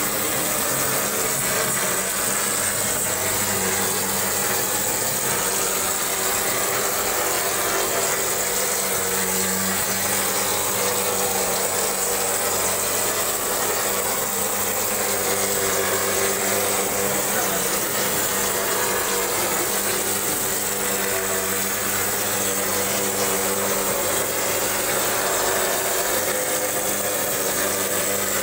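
Gypsum plaster spraying machine running steadily: a constant motor hum under the dense hiss of plaster and air blowing from the spray gun onto the wall.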